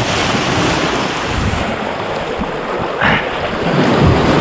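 Sea waves surging and washing around a kayak close up, with wind buffeting the microphone. A short louder rush comes about three seconds in.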